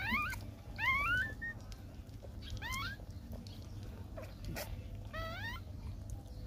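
Newborn puppies squeaking while nursing: about four short, high cries rising in pitch, with a cluster of them a little after five seconds.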